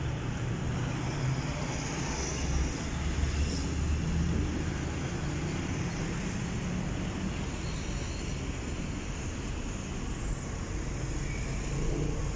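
City street traffic: car engines running and passing close by in slow traffic, a steady low rumble with tyre noise.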